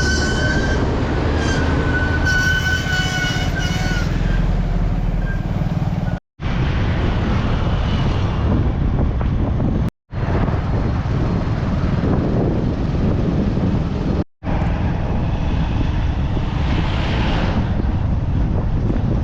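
Road traffic and vehicle noise with wind buffeting the microphone, with a faint high tone in the first few seconds. The sound drops out briefly three times.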